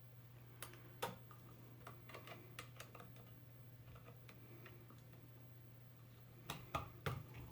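Faint scattered clicks and light taps of a screwdriver and wires being worked at a wall outlet while the ground wire is taken off, a few about a second in and a cluster near the end, over a low steady hum.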